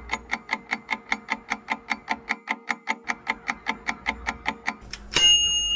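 Countdown timer sound effect: a clock ticking quickly and evenly, about five ticks a second, stopping after about five seconds. A bell-like ding follows near the end, marking that time is up.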